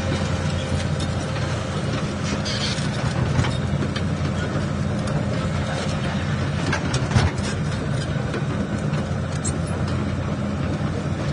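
Radio-controlled Komatsu PC360 hydraulic excavator model running with a steady low drone, with scattered light ticks and one sharper click about seven seconds in.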